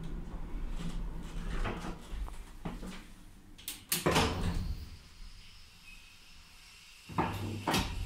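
1978 ZREMB passenger lift: a sharp click as the floor button is pressed about halfway through, a quiet spell, then two heavy clunks near the end as the lift sets off, followed by a low hum.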